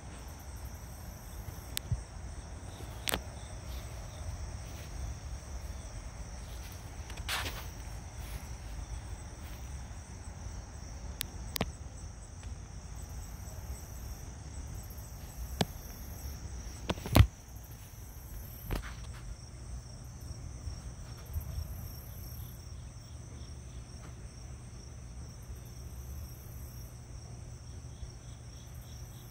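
Insects chirping in a steady high drone, with a low rumble underneath and a few sharp clicks, the loudest about 17 seconds in.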